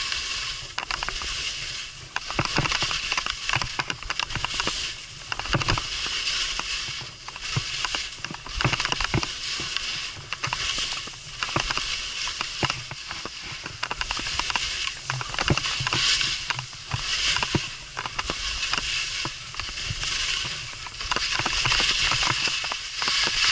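Skis scraping and hissing on snow as the skier links turns down a steep slope, the sound swelling and fading every second or so, with scattered clicks and knocks.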